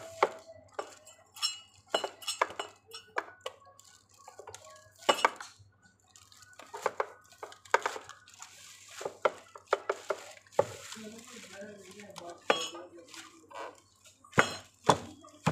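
Hard plastic high-chair parts clicking and knocking as a white tube is worked into the plastic seat's end socket, in irregular sharp knocks.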